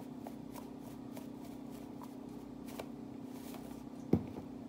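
Spice jar being shaken over a bowl: a run of soft, irregular taps and rattles as ground cumin and coriander powder falls out. One louder thump about four seconds in, over a steady low hum.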